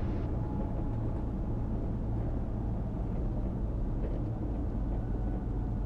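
Cirrus SR22T in the cabin at idle power during the landing rollout: a steady low drone of engine and rolling noise.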